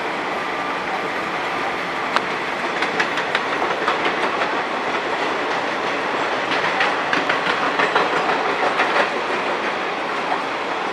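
Indian Railways passenger coaches of an express train running past at speed: a steady rush of wheels on rail with a clickety-clack of wheels over rail joints. The clicking comes in runs, thickest from about two to nine seconds in.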